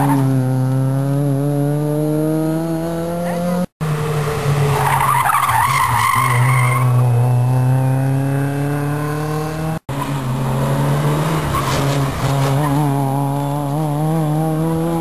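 Rally car engines accelerating hard past on tarmac, their pitch climbing, in three short takes that break off abruptly. Tyres squeal as one car corners a few seconds in.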